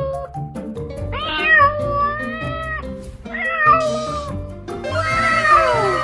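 Young tabby cat meowing: three long, drawn-out meows, the last falling in pitch, over background music.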